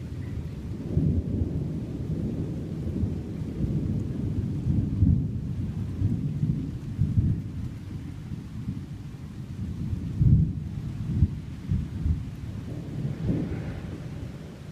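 Thunder rumbling low and continuously, swelling into several louder peals, the loudest about ten seconds in.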